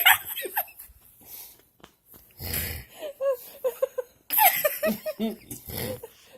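Loud snoring: three heavy, rasping snore breaths a second or two apart. Short stifled giggles come in between.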